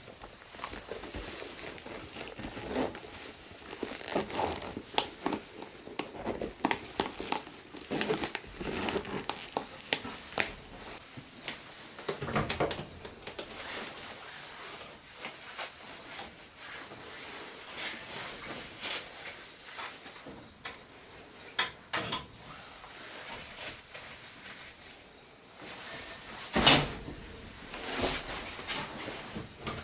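Objects being handled at close range: scattered clicks, taps and light rustling, with a louder knock about 12 seconds in and another about 27 seconds in.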